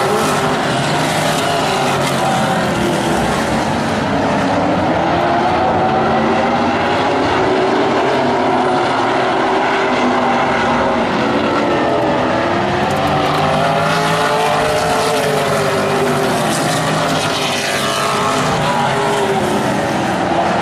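A pack of vintage modified race cars racing together, several engines at once, their pitch climbing and falling over and over as the cars accelerate and lift through the laps.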